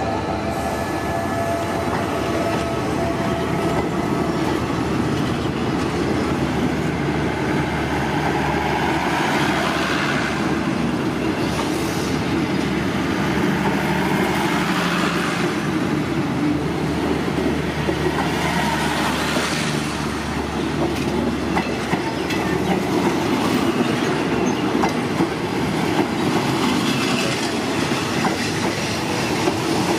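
Passenger coaches of a State Railway of Thailand special express train rolling past, steel wheels clattering over the rail joints in a steady rumble that swells into a heavier clatter at intervals.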